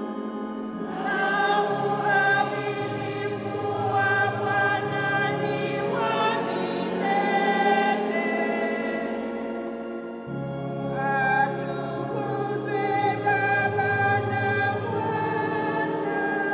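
A choir singing a slow hymn with organ accompaniment, in long held notes that change in steps over a steady low part. There is a short break between phrases about ten seconds in.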